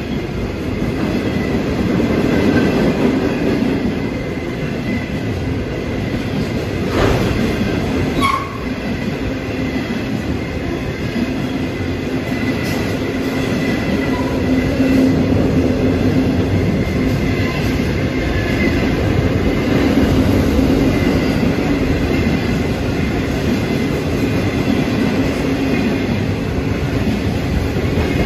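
Freight train wagons, open wagons and then empty flat wagons, rolling past at speed with a steady loud rumble and clatter of wheels on rail. There are two sharp knocks about seven and eight seconds in.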